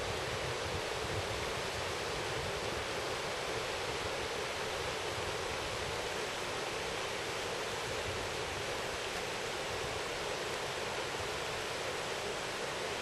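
Steady rushing of a shallow river running over stones.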